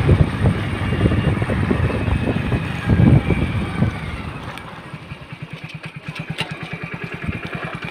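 A small engine running with an even, fast pulsing beat, coming through clearly in the second half; heavy irregular low rumbling covers the first half.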